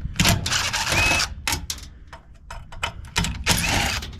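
Clicking and clattering of tools and metal parts being handled, with a series of sharp knocks and rattles.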